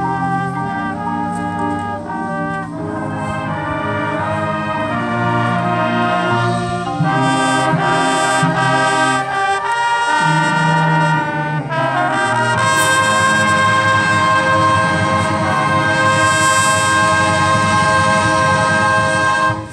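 High school marching band playing brass-led music with percussion. The music swells, a crash comes about two-thirds of the way in, and then a long held chord stops abruptly at the very end.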